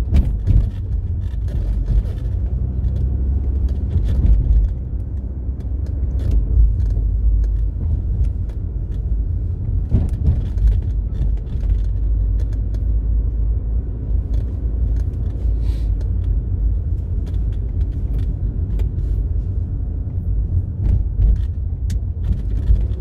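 Car engine and road noise heard from inside the cabin while driving: a steady low rumble with scattered light knocks and clicks.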